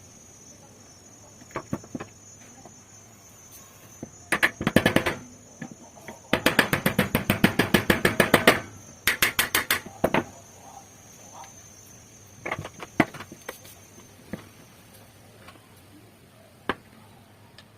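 Three bursts of rapid clicking, about ten clicks a second, with a few single knocks before and after, over a thin steady high trill that stops near the end.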